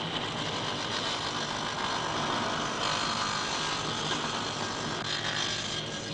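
Electric meat band saw running, its blade cutting through a meat carcass, heard as a steady mechanical noise that gets a little brighter about three seconds in.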